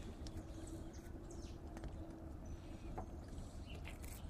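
Kittens eating waffles: a few scattered small crunches and clicks from their chewing over a steady low hum, with faint high chirps.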